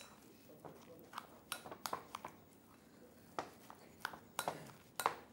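Spoon clinking and scraping against a glass mixing bowl as a minced-meat, onion and spice mixture is stirred together. The sound is a string of short, irregular taps and scrapes.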